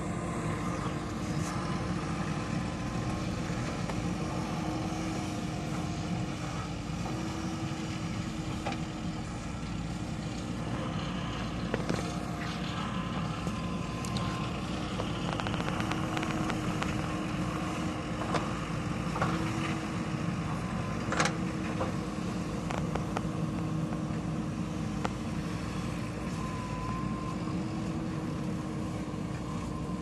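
JCB 3DX backhoe loader's diesel engine running steadily under load as the backhoe digs and swings soil into a dump truck, its pitch rising and falling a little with the hydraulic work. A few sharp knocks come through, most clearly about two thirds of the way in.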